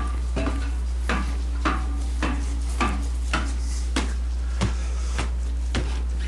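Footsteps climbing a metal ladder and stairs: evenly paced knocks, about two steps a second, some with a short hollow ring. A steady low electrical hum runs underneath.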